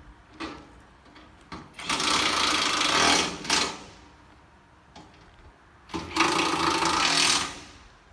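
Two loud bursts of machine noise, like a power tool running, each lasting about one and a half to two seconds and stopping fairly suddenly. Faint clicks come in between.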